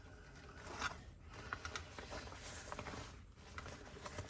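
Faint rustling and small clicks of a thick fabric tool bag being handled, coming in short scattered bursts.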